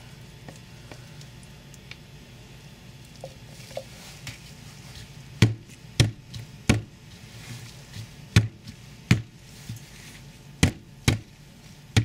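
A spoon knocking against the side of a cup of soap batter: about eight sharp taps, unevenly spaced, starting about halfway through.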